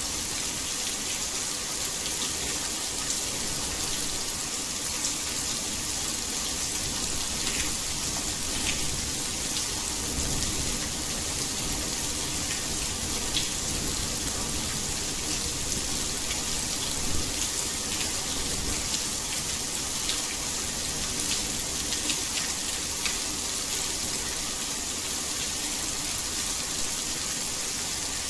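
Heavy rain falling steadily, an even hiss with scattered sharper drop impacts.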